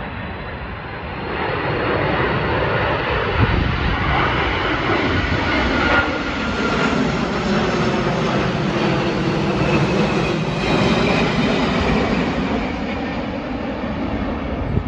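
Twin-engine wide-body jet airliner flying low overhead on landing approach: a loud, even engine roar that swells from about a second in, with whining tones that fall in pitch as it passes over, easing off slightly near the end.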